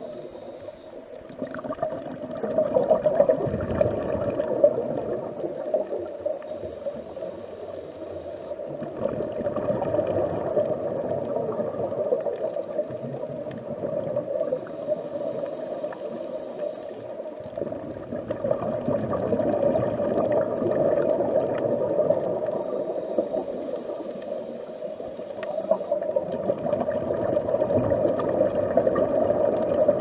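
Underwater ambience heard from below the surface: a continuous muffled rush and gurgle of water that swells and eases roughly every eight to ten seconds.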